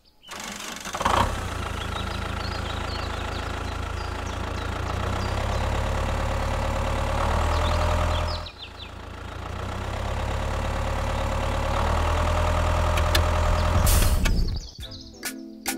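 Diesel tractor engine running at a steady idle with a knocking chug, surging briefly about a second in and dropping out for a moment about eight and a half seconds in before running on.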